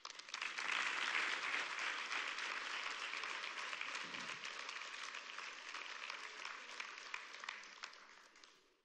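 Congregation applauding: the applause starts abruptly, is loudest in the first second or two, then slowly dies away over about eight seconds.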